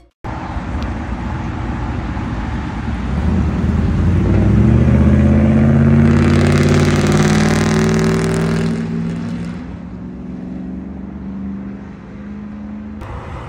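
A car accelerating past, its engine note rising in pitch and getting louder, loudest about six to eight seconds in, then fading as it drives away.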